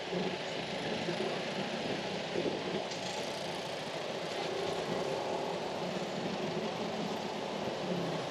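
Street traffic: cars, pickup trucks and motorbikes running and passing in a steady wash of engine and tyre noise.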